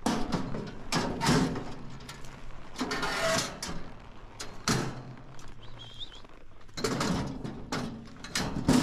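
Steel calf chute banging and rattling as its gate is sprung and a calf is let out: a string of about ten sharp clangs and knocks, with a longer rattle about three seconds in.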